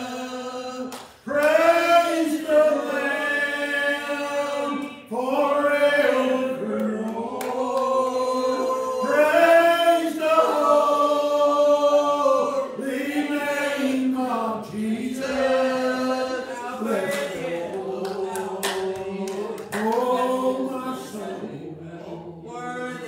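A man singing a gospel hymn unaccompanied, in long drawn-out notes that slide between pitches.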